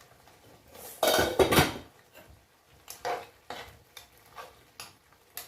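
A metal utensil clattering and scraping against a cooking pot: one loud scrape about a second in, then a series of light knocks and taps against the pot.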